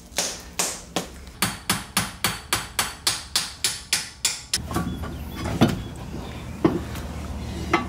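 Hammer blows on the end of a stuck BMW E36 rear axle shaft at the wheel hub, driving the axle loose: a fast, even run of about three strikes a second for some four and a half seconds, then three single knocks.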